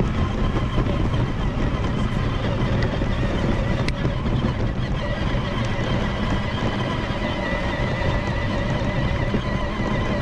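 Battery-powered vehicle driving along: a steady electric motor whine over a constant rumble of the wheels on the ground.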